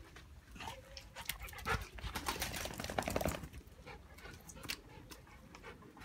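Golden retriever panting and snuffling up close, with a cluster of louder noises about two to three and a half seconds in.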